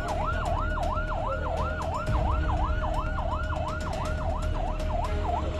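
Ambulance siren in a fast yelp, its pitch rising and falling about three times a second over a low rumble; the sweeps grow shorter near the end.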